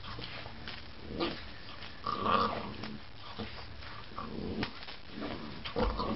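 Boxer puppy growling in short play bursts while it mouths and pounces on a small toy, the loudest burst about two seconds in.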